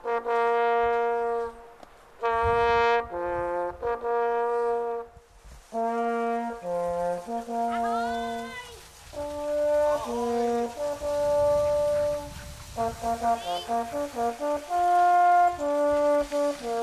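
A long brass horn playing a fanfare of separate held notes with short gaps, a quick run of short notes past the middle. A few brief yelping cries, from the sled dogs running past, break in between the notes.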